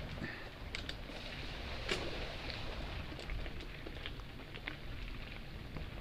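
Mountain bike riding along a dirt and gravel trail: a steady low rumble with scattered clicks and rattles.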